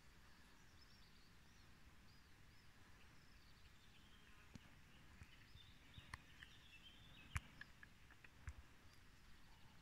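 Near silence outdoors with faint distant bird chirps. A few sharp clicks and knocks come in the second half, the loudest about seven seconds in, as the phone is handled and moved off the spotting scope.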